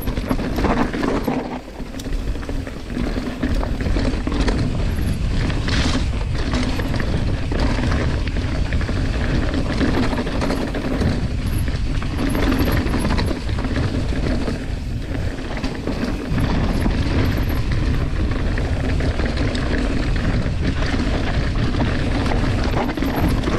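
Mountain bike descending a dirt singletrack: tyres rolling over dirt and loose stones, the bike rattling over the bumps, and wind rushing steadily over the camera microphone.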